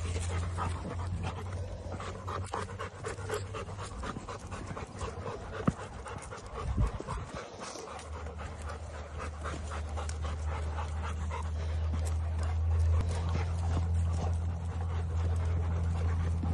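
Several dogs panting quickly and repeatedly as they walk on leashes, with a low steady rumble underneath in the second half.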